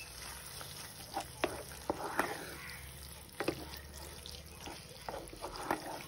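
Wooden spatula stirring and scraping thick, cheesy broccoli datshi in a non-stick pan: a few sharp knocks and scrapes in two clusters, over a faint steady hiss from the cooking.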